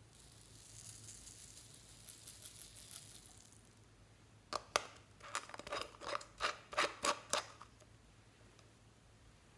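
Purple glitter and tiny beads pouring out of a small plastic bottle into a glass bowl, a soft high hiss with fine crackle, then about a dozen sharp plastic clicks and knocks as the bottle is handled.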